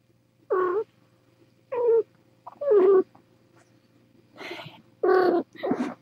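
A kitten mewing: a string of about six short, high mews, each rising and falling in pitch, coming closer together near the end.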